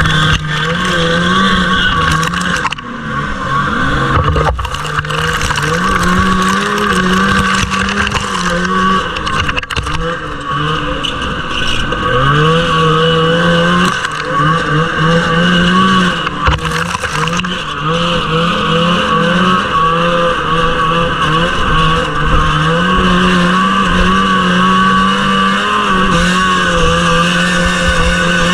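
Two-stroke engine of a 1979 Arctic Cat Jag 3000 snowmobile racing at high revs. The pitch climbs and falls back again and again as the throttle is worked through the course, over a rough low rumble.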